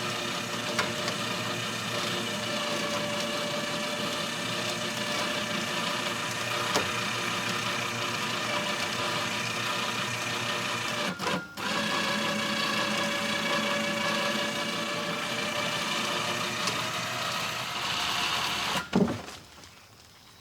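Winch on a Kawasaki Mule utility vehicle whining steadily as it hauls a heavy white oak log up to working height. It stops briefly about halfway, runs again, then stops near the end with a knock.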